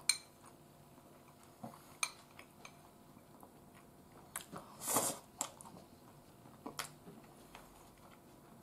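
A person chewing fried chicken with the mouth near the microphone, with a few sharp clicks of chopsticks against a porcelain bowl. A brief hiss-like noise about five seconds in is the loudest sound.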